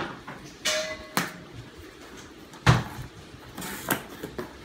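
Cardboard shipping box being cut open and its flaps pulled back: rustling and scraping of cardboard and packing tape, a couple of sharp clicks, and one loud thump about two and a half seconds in.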